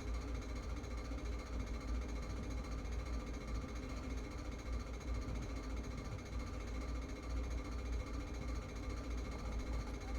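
Steady low hum with a faint mechanical buzz, like a small motor or fan running continuously.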